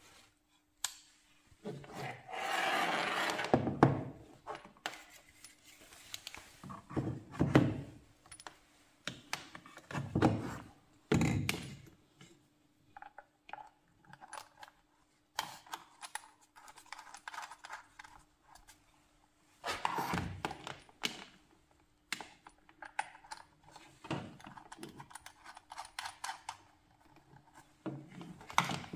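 Handling noise from a soldering and hot-air rework station being set up: irregular thunks and knocks of its housing, cables rustling, and metal clicks as round multi-pin plugs are fitted to its front sockets.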